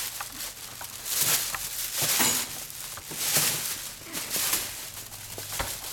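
Clear plastic bag over a dress form rustling and crinkling as the form is lifted and handled, in several short bursts.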